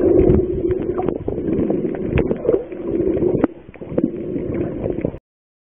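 Muffled underwater sound picked up by a submerged camera: a low steady hum with frequent sharp clicks and knocks. It dips briefly about three and a half seconds in and cuts off suddenly a little after five seconds.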